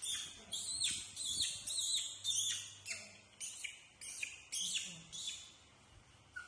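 High-pitched chirping calls, several a second, each dropping sharply in pitch; they thin out near the end.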